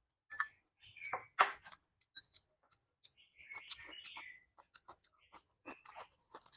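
Chopsticks clicking and tapping against bowls and dishes while eating: a string of sharp, irregular clicks, the loudest a little over a second in, with a softer rustling, crunching patch a little past halfway.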